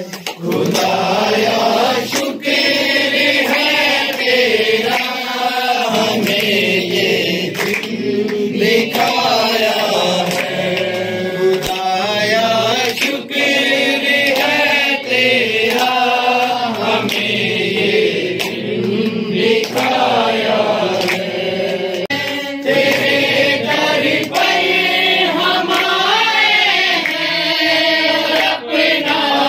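A group of men and women singing a Christian worship song together, with hands clapping along.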